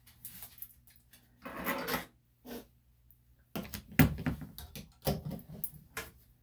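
A series of short rustles and knocks, several close together in the second half, over a faint steady low hum.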